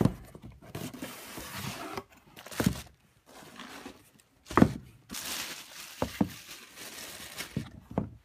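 A cardboard shoe box being handled and a thin plastic bag crinkling as a leather wingtip shoe is unwrapped, broken by several sharp knocks of the box and shoe set down on a wooden floor, the loudest about halfway through.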